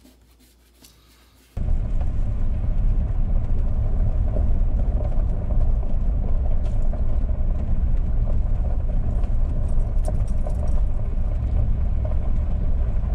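Steady low rumble of a car driving along a gravel lane, heard from inside the cabin: tyre and engine noise that starts suddenly about a second and a half in.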